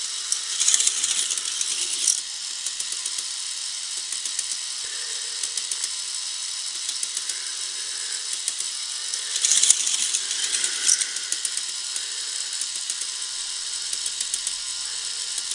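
K'nex Electric Inferno toy roller coaster running: its motorized lift keeps up a fast, steady plastic clicking, and twice, near the start and about ten seconds in, a louder rattle comes as a car runs along the plastic track.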